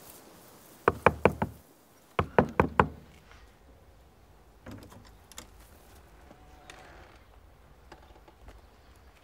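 Knocking on a weathered wooden door: two quick rounds of sharp knocks about a second apart.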